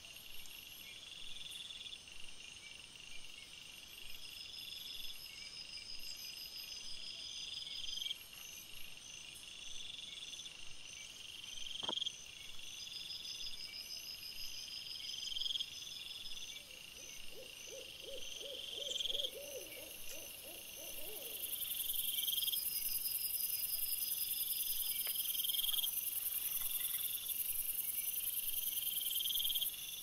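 High-pitched insect-like chirring repeating every second or two, with a single click near the middle and a short wavering hoot-like call a little after it; a steady high hiss comes in about two-thirds of the way through and is the loudest part.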